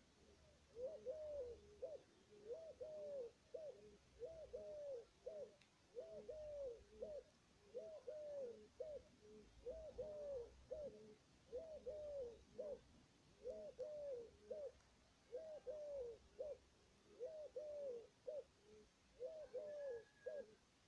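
A dove cooing the same short phrase over and over, about every two seconds.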